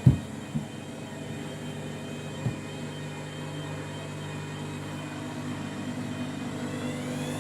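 Washing machine on its final spin: a steady motor whine and the drum turning, with a loud thud right at the start and two lighter thuds, about half a second and two and a half seconds in.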